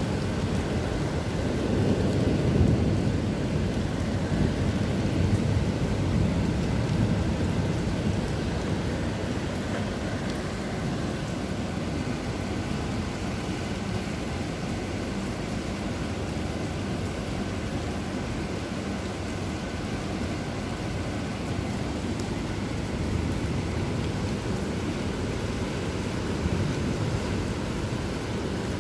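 Heavy rain falling, a steady hiss, with a deeper rumble that is louder over the first several seconds and then settles.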